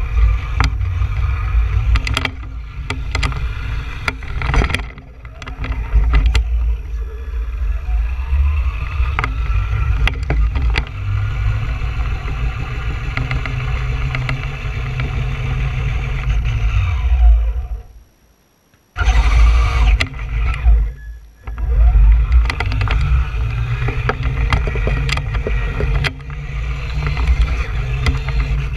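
Traxxas Stampede 2WD RC monster truck driving on concrete, heard from a camera riding on the truck: a heavy rumble from the tyres and chassis, with the electric motor's whine rising and falling as the truck speeds up and slows, and many clicks and knocks from bumps. The sound cuts out to near silence for about a second about two-thirds of the way through.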